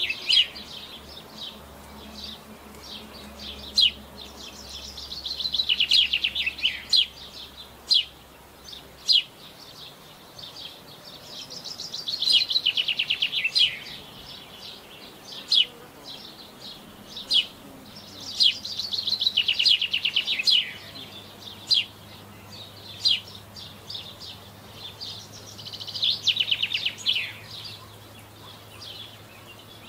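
Songbird singing: four times, a fast run of notes that falls in pitch over about two seconds, with single sharp high call notes scattered in between.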